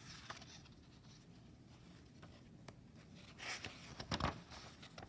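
A paper picture-book page being turned by hand: a short swish and rustle a little over three seconds in, with a sharp flap of the page near four seconds. Before that, only a few faint clicks.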